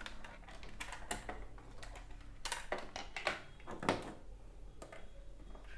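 Irregular light clicks and knocks from handling the TV set and its parts, over a low steady hum.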